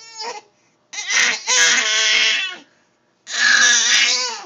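A pet animal's long, wavering cries, pitched and whining: two drawn-out calls of about a second and a half each, with the tail of an earlier call at the start.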